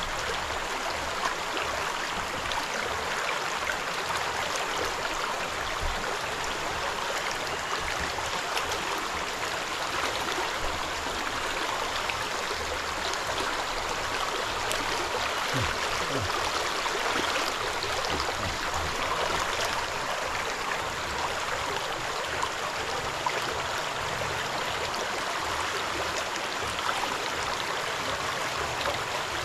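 Stream water running steadily, mixed with the swishing and sloshing of water and gravel swirled in a gold pan.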